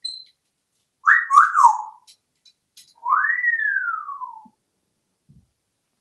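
African grey parrot whistling: a brief high note, then two quick notes about a second in, then one long whistle that rises and slides slowly down. A few faint clicks come between the notes.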